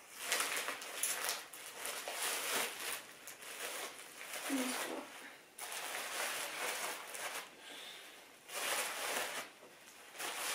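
Plastic mailing bag rustling and crinkling in bursts as it is opened and a bundle of baby clothes is pulled out of it.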